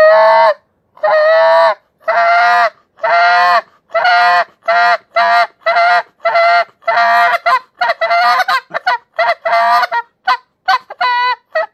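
Reed goose call blown in a string of Canada goose honks with a tubey, buzzy tone. The first notes are long and drawn out, and the notes turn quicker and shorter near the end.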